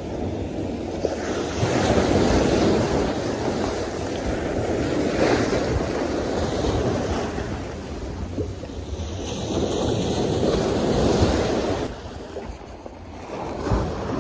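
Sea surf breaking and washing in over concrete wave-breaker blocks, surging up three times, with wind buffeting the microphone as a steady low rumble. The surf drops away near the end.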